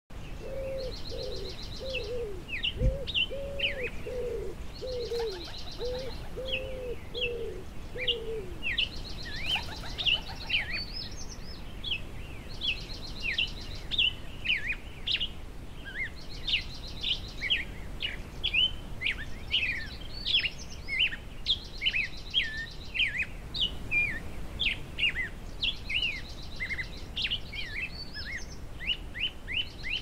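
Outdoor dawn-chorus-style birdsong: small songbirds chirping steadily, with crickets trilling in bursts of about a second every few seconds. Over the first eight seconds a run of soft, low cooing notes from pigeons or doves sits underneath, and a single knock comes about three seconds in.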